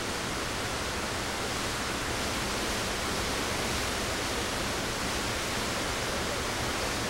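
Steady, even rushing of falling water from waterfalls in a rock canyon.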